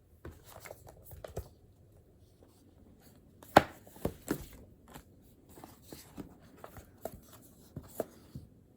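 Irregular taps, clicks and knocks of small objects being handled on a desk, with one sharper knock about three and a half seconds in.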